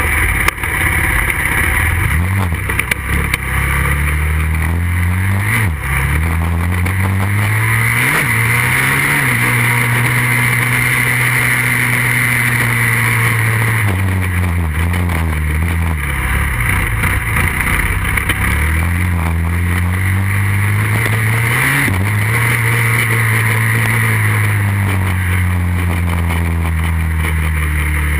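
A 2008 Kawasaki 450 quad's single-cylinder four-stroke engine, heard from a camera mounted on the machine, running hard across sand. The revs climb and fall over and over, with several sudden drops as the rider shifts and lets off the throttle.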